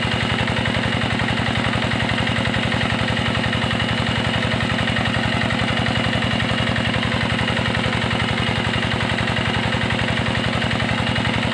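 Small engine running steadily at idle, with a fast, even beat that does not change.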